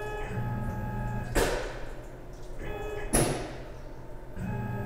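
Lathe collet closer actuating twice during a bar pull: a sharp burst about a second and a half in as the collet opens, then another about 1.7 s later as it closes on the bar, each fading within half a second.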